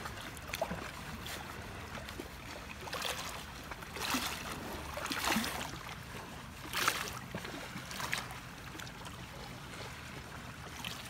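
Small waves lapping and splashing against the rocky lake shore in irregular swells, over a low steady hum.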